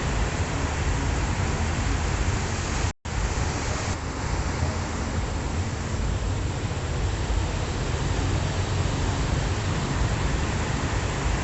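Ocean surf washing in, heard as a steady rushing hiss, with a sudden brief cut to silence about three seconds in.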